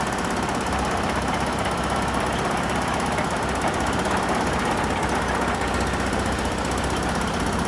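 Excavator's diesel engine running steadily with a dense, fast mechanical clatter.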